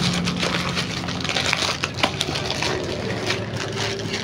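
Black plastic courier mailer bag being handled, crinkled and torn open by hand: a dense, irregular run of crackles and rustles.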